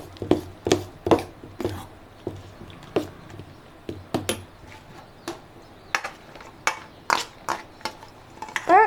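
A spoon stirring thick idli batter in a bowl, knocking and scraping against the bowl in irregular clicks.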